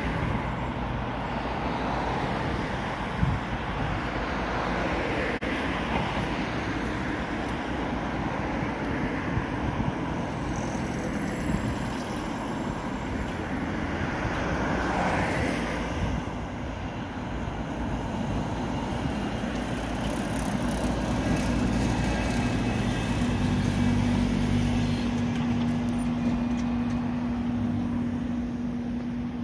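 Steady road traffic noise with a tram approaching and passing close by. From about twenty seconds in, the steady hum and whine of the red Konstal tram's motors grow louder as it draws alongside.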